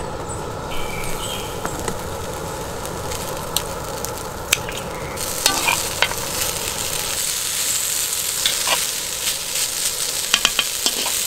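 Leftover marinated pork ribs and rice frying on a round griddle pan over a portable butane stove, sizzling steadily, with metal tongs and a spoon scraping and tapping on the pan as the food is stirred and broken up. The sizzle grows louder about five seconds in.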